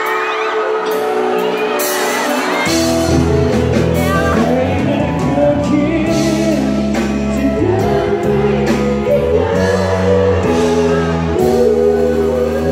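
Live pop band and singer performing, recorded from within the audience. The bass and full band come in about two and a half seconds in, with fans shouting and screaming along.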